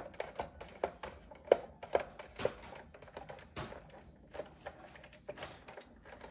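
Irregular small clicks and taps of a screwdriver and hands working at the screws of a plastic radio case.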